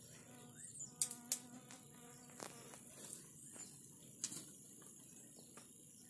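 Faint, steady, high-pitched chirring of insects, with a few soft clicks scattered through it.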